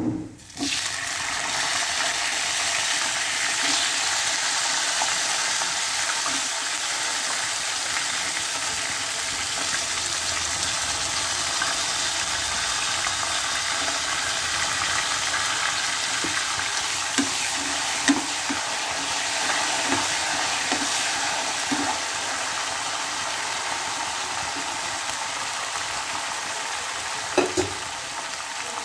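Water-soaked potato pieces and fresh peas frying in hot oil in a kadhai, a steady loud sizzle that starts suddenly about half a second in as the wet vegetables hit the oil. A few light knocks come near the middle and near the end.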